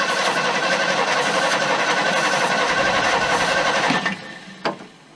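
Starter cranking the 390 V8 of a 1974 Ford F-350, steady and without the engine catching, then stopping suddenly about four seconds in; a single clank follows shortly after.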